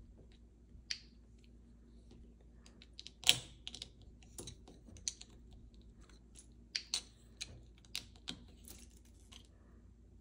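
Small plastic LEGO pieces clicking and tapping as they are handled and pressed together: a scatter of light, irregular clicks, the sharpest about three seconds in.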